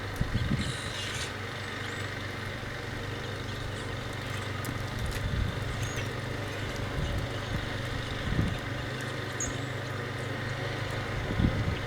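A steady low engine hum, with a few dull low thumps rising over it near the start, about eight seconds in and near the end.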